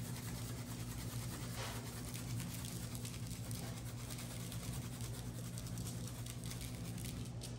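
Coarse 16-mesh black pepper shaken from a large shaker jar, the grains pattering onto raw pork spare ribs on a cutting board, over a steady low hum.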